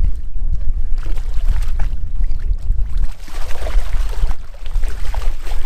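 Wind rumbling on the microphone, with water splashing and sloshing for a second or so around the middle.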